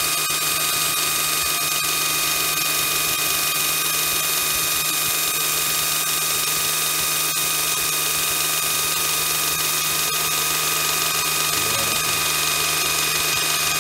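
Electric knife-sharpening bench grinder running steadily, a constant motor hum with a steady high whine and hiss, with no blade against the wheel.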